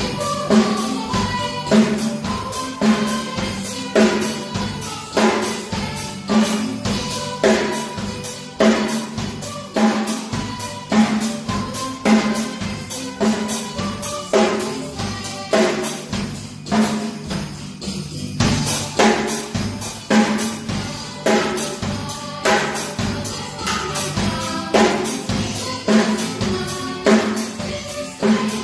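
Child-size junior drum kit played with sticks in a steady beat: bass drum, snare hits and cymbals.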